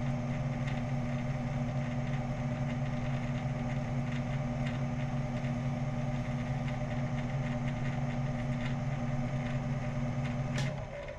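1998 Shoptask XMTC Gold lathe-mill combo's spindle running with a steady hum while a hand file is held to the spinning part, giving faint scratches. Near the end a click and the motor hum cuts off, fading as the spindle winds down.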